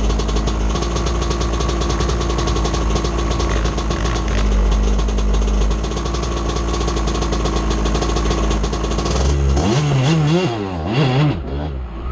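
An off-road vehicle engine running at a steady speed, then revving up and down several times in quick succession near the end.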